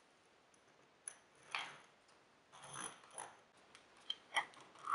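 Small steel hardware, bolts, washers and wing nuts, clicking and scraping against plywood clamp blocks as it is handled and fitted. The sound comes as a scattering of light clicks and short scrapes, the loudest click near the end.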